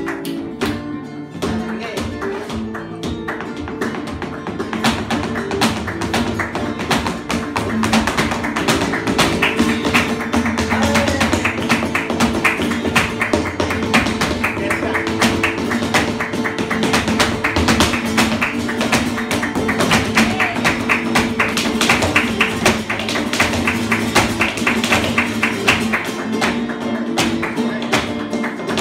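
Live flamenco music: a Spanish guitar playing with rhythmic hand-clapping (palmas). The clapping grows louder and denser about four seconds in.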